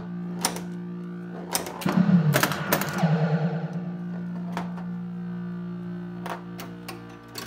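Bally Flash Gordon pinball machine's electronic background sound running steadily without a break, played through a replacement Squawk & Talk sound board, with sharp clicks and knocks from the playfield, most of them clustered about two to three seconds in. A short warbling sound effect plays over the background about three seconds in.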